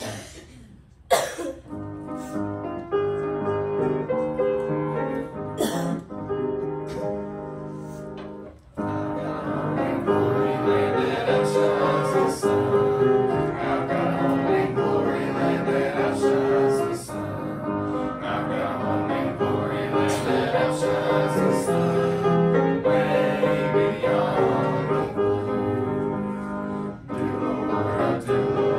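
A sharp click about a second in, then a hymn's piano introduction. About nine seconds in, singing joins over a fuller accompaniment.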